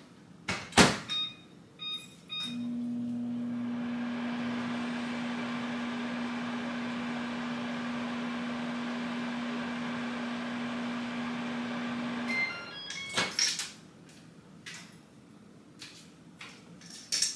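Over-the-range microwave oven: a few keypad beeps as it is set, then about ten seconds of steady humming while it heats. It stops about twelve seconds in, followed by beeps and a few clicks.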